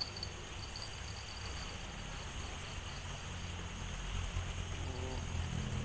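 Outdoor ambience: a pulsing insect trill that fades in the first second over a steady hiss, then the low hum of a passing vehicle's engine growing louder toward the end.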